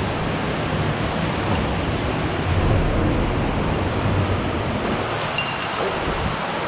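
Steady rush of running water from Claustral Brook in the narrow sandstone slot canyon.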